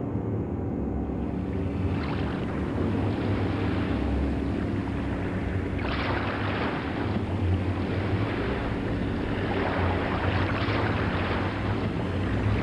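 Sea surf breaking and washing over rocks, surging about every four seconds, over a steady low hum.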